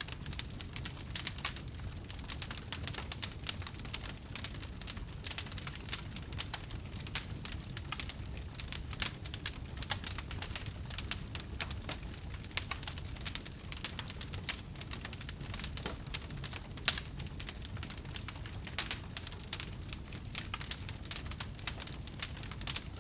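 Wood fire burning, with dense crackles and pops from the burning wood over a low steady rumble, and one louder pop about three-quarters of the way through.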